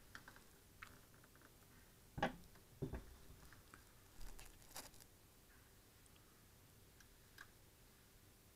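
Hands handling an electric unicycle and pressing its on/off button, which stays stuck in: two knocks a little after two seconds in, then a few light clicks, otherwise near silence.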